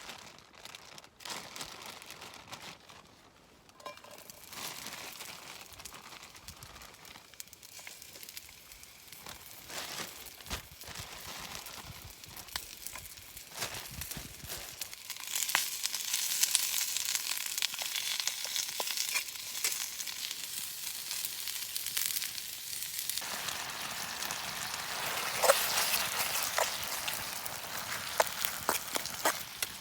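Crinkling and handling with scattered clicks, then, about halfway through, Towada bara-yaki (sliced beef and onions in a soy-based sauce) starts sizzling loudly in a hot pan, with clicks of a utensil stirring it.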